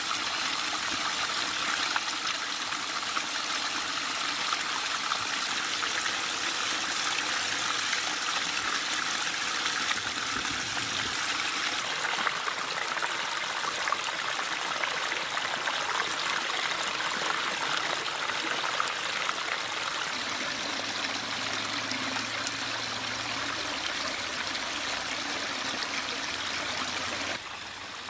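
Pondless backyard waterfall: water spilling over stone ledges and splashing onto river-rock gravel, a steady trickling rush. The sound shifts slightly about halfway through and turns quieter just before the end.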